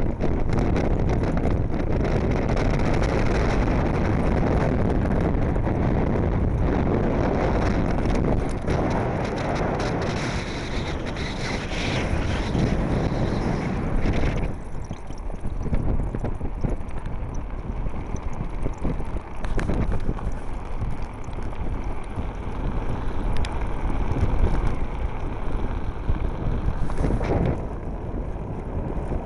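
Wind buffeting the microphone of a handheld camera on a moving Blokart land yacht, a steady loud rush. About halfway through it turns duller and more gusty.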